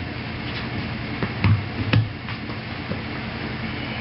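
Screwdrivers prying a tire bead onto an alloy wheel rim: a handful of sharp metal clicks and knocks, the loudest with a dull thud between about one and a half and two seconds in, over a steady low hum.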